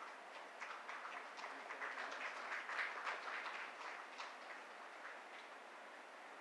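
Faint, scattered audience applause, building over the first few seconds and then thinning out.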